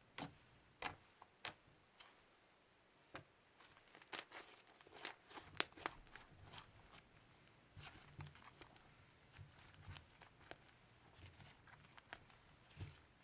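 Hands squeezing and stretching slime, making a string of irregular sticky clicks and pops, thickest and loudest around the middle.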